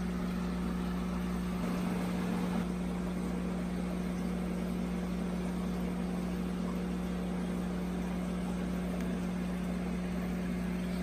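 Steady electrical hum with an even hiss, the running noise of aquarium equipment such as filters and air pumps.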